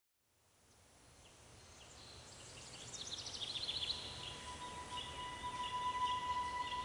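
Soft outdoor ambience fading in from silence, with quick high bird chirps in the middle, then a steady high tone holding near the end.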